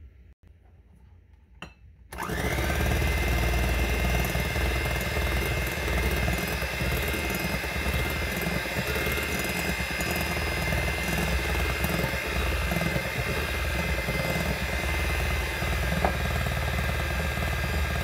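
Electric hand mixer switched on about two seconds in, its motor whining up to speed, then running steadily as the beaters whip the sponge batter while flour is added.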